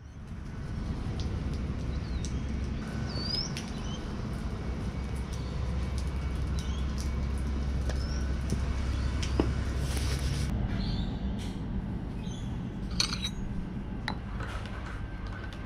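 Short bird chirps over a steady low rumble, with scattered light clicks.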